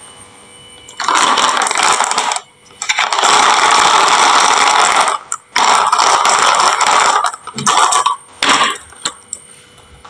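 Marbles rolling and clattering down a wooden marble-run slope, in several long rattling runs with short pauses between, ending in a few brief clatters.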